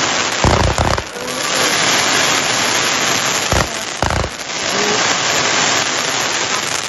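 Fireworks display: a dense, continuous crackle of golden crackling sparks, with two deeper bangs about half a second in and about three and a half seconds in.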